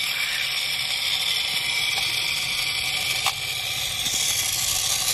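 Steady whir of a solar toy boat's small electric motor spinning its plastic air propeller, with a faint click about three seconds in.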